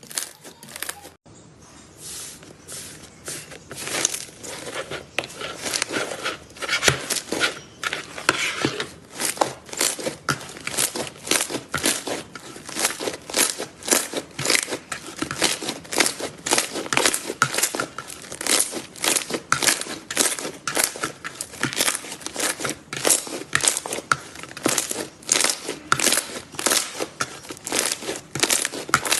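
Slime being squeezed and pressed by hand, giving a dense run of sharp crackling and popping clicks, several a second. There is a brief drop about a second in before the crackling starts.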